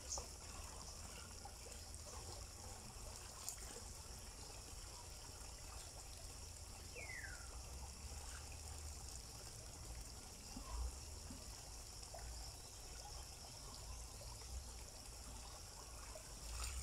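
Faint water trickling and pouring as hands are washed with water scooped from a pond in a basin, over a low steady rumble.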